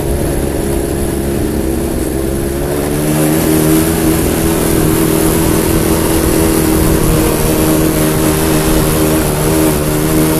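Quad bike (ATV) engine running hard, stepping up in revs about three seconds in and then holding steady, with wind rumbling on the microphone.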